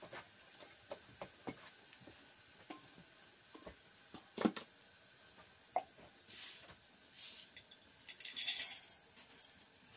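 Garlic frying in pork fat in a pan on a wood-fired stove, a faint steady sizzle under scattered clinks of a metal mug and pan, with one louder clink about halfway through. A dense hissing, rattling burst comes a little after eight seconds.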